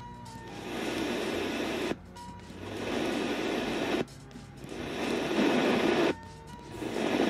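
Homemade RDA5807M FM radio receiver changing station with each button press: about every two seconds the audio cuts out suddenly, then hissy, static-laden reception swells back in, four times over.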